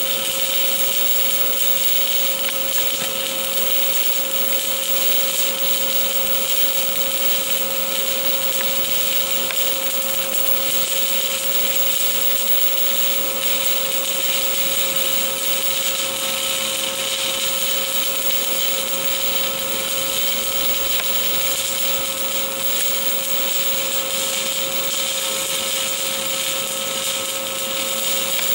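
Stick-welding arc burning on stainless steel during a vertical-uphill cover pass: a steady, unbroken hiss with a steady tone beneath it.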